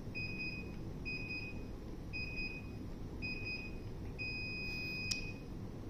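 Daikin VRV indoor unit's buzzer answering the remote in error-check mode: four short beeps about a second apart as the codes are stepped through, then one long beep about four seconds in. The long beep marks A8 as the stored error code. A small click comes near the end.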